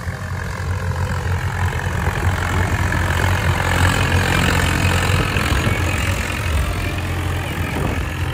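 Swaraj 855 FE tractor's diesel engine running steadily while pulling a disc harrow through dry soil. It grows louder as the tractor passes close by about halfway through, then fades a little as it moves away.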